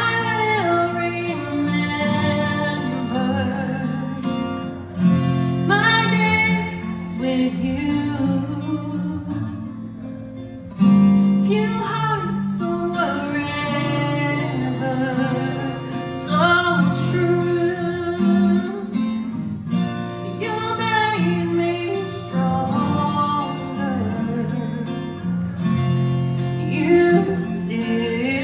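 A woman singing a slow ballad with long held, wavering notes, accompanied by a man's acoustic guitar.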